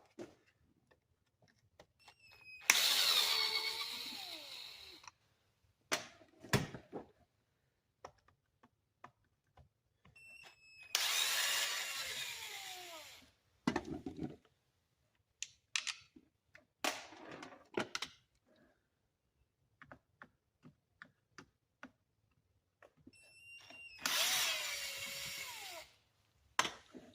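Power drill spinning out the chainsaw's cover screws in three bursts of about two seconds each, each starting loud and fading. Small clicks and handling sounds come between the bursts.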